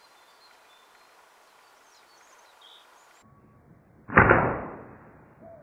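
Flatband slingshot fired once with a 7mm steel ball, about four seconds in: a sudden loud snap that fades away as a whoosh over about a second.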